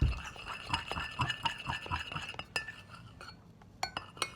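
Utensil clinking and scraping against a bowl as glue is stirred for slime, in quick irregular taps that pause briefly near the end.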